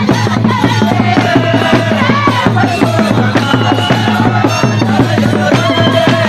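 Bwola dance music: many small hand-held drums beaten with sticks in a fast, dense rhythm, with singing over it.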